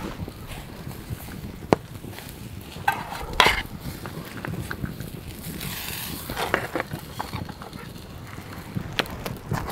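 Wood campfire crackling with a few sharp pops, along with metal clinks and scraping as steaks are lifted off a wire grill onto a metal plate.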